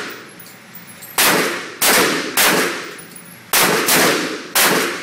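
AR-15 rifle fired six times in semi-automatic, two quick groups of three shots, each a sharp crack that trails off briefly.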